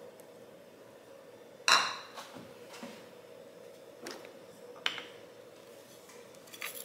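A few clinks and knocks of dishes and utensils being handled and set down on a stone countertop, the loudest a ringing clink about two seconds in. A faint steady hum runs underneath.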